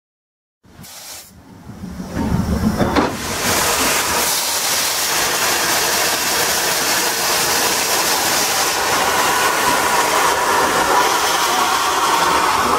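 Steam locomotive blowing steam from its cylinder drain cocks: a steady hiss that starts about a second in and swells to full strength about two seconds in.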